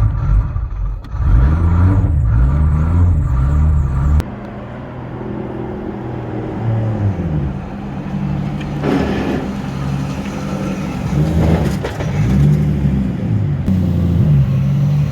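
Car engine accelerating under way, its pitch rising and dropping back several times as it goes up through the gears. The sound changes abruptly about four seconds in.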